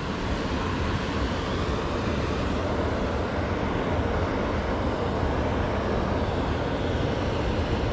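Steady rushing of river water, an even noise with no break or change.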